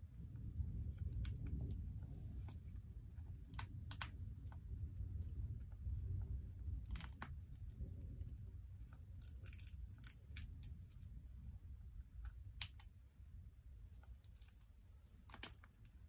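Congo African grey parrot chewing a wooden block toy with her beak: irregular sharp clicks and snaps of wood, in small clusters with pauses between, over a low steady rumble.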